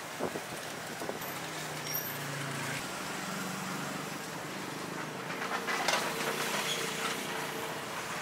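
Roadside traffic passing, with an engine hum from about two seconds in, over steady background noise; a short run of clicks and clatter about six seconds in.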